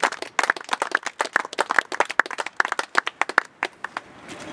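A small group of people clapping by hand, the separate claps thinning out and stopping about three and a half seconds in.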